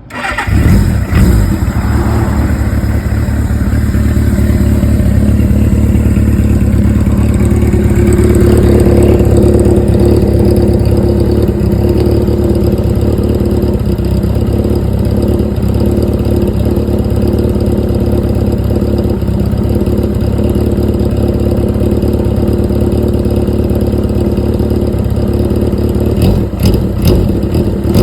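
Suzuki GS750 air-cooled inline-four motorcycle engine, breathing through aftermarket machine-bent Tokyo Tekkan exhaust pipes with a baffle, starting up suddenly and settling into a steady idle. A few short sharp blips come near the end.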